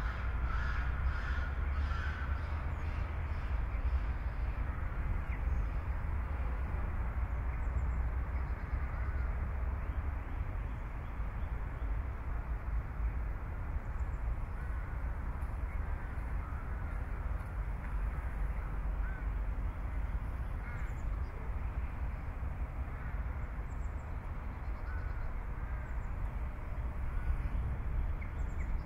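Outdoor ambience: birds calling at intervals over a steady low rumble.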